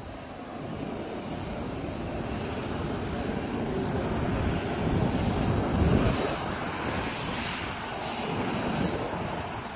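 Private jet's engines running with a steady rushing roar, swelling louder about halfway through and then easing off.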